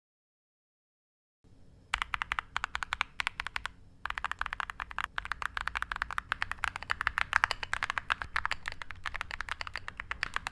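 Mechanical keyboard with mochi-style keycaps typed on quickly: a fast, dense patter of keystrokes that starts about two seconds in, after a moment of silence, with a short pause about four seconds in.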